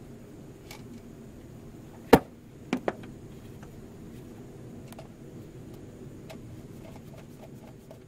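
Sharp metal clicks and knocks of a hand tool working the distributor's hold-down bolts on an engine. One loud knock comes about two seconds in and two quicker ones follow, with fainter ticks scattered around them.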